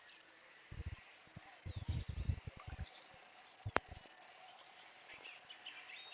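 Quiet rural outdoor ambience with faint bird chirps, broken by a few soft low thumps and a single sharp click near the middle.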